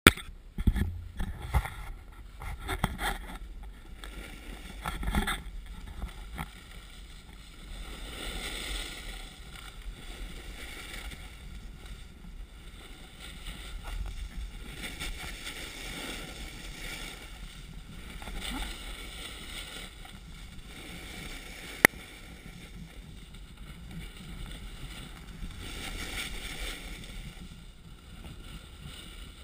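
Snowboard sliding down a groomed piste, its edges hissing and scraping on the snow in a steady rush that swells with each turn. Several loud knocks in the first few seconds, and one sharp click about two-thirds of the way through.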